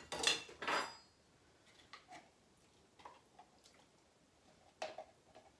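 Crushed pineapple being scraped out of a tin can into a bowl with a spatula. A brief clatter in the first second, then soft, scattered wet scrapes and taps.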